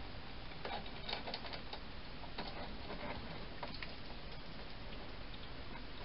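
Hedgehog crunching food at a feeding station: irregular small clicks and crackles, bunched about a second in and again a little later, over a steady hiss.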